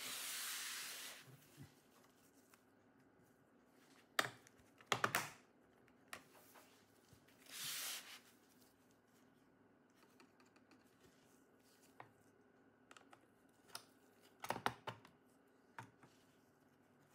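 Bottom cover of an HP Omen Max 16 laptop being pried loose with a plastic pry tool: scattered sharp plastic clicks as the clips let go, bunched about four to five seconds in and again near the end, with two short scrapes of the tool along the case, one at the start and one about halfway.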